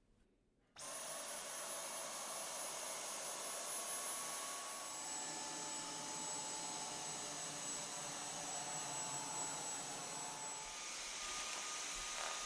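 Dyson V10 cordless vacuum cleaner switching on about a second in and running steadily with a high whine. The whine steps down in pitch about five seconds in and back up near the end.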